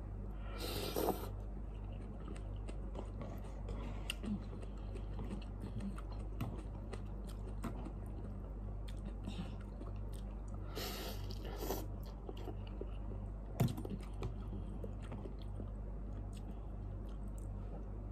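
A man chewing forkfuls of instant cup noodles, with two short slurps, about a second in and again about eleven seconds in, and small clicks of the fork, over a steady low hum.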